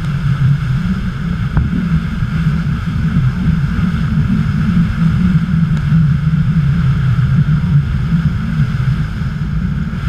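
Tour speedboat running through rough white water: a steady engine drone mixed with the rush of churning water and spray.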